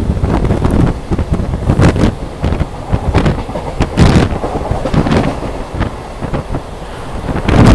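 Wind buffeting the microphone of a phone held out of the open doorway of a moving Mumbai suburban electric local train, in uneven gusts over the train's running noise.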